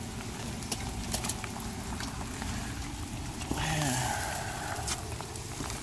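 Steady rain pattering, with a brief louder rush of noise from about three and a half to five seconds in as the lid of a charcoal kettle grill is lifted.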